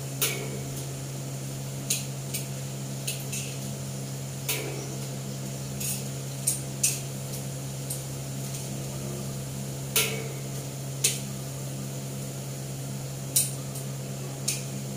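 Metal cooking utensil clinking and scraping against a wok as potato omelette patties are turned in the pan: about a dozen sharp, irregular clinks over a steady low hum.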